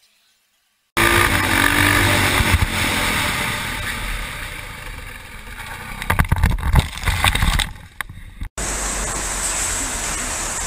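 A moving vehicle's engine and road noise, loud and rough, starting abruptly about a second in. A cluster of sharp knocks and thumps comes about six to seven seconds in, then the sound cuts out and gives way to a steady, even hum of running traffic.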